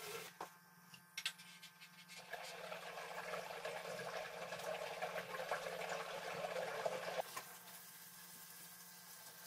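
Liquid running and splashing into a stainless conical fermenter for about five seconds, then stopping suddenly, over the steady low hum of the brewing pump.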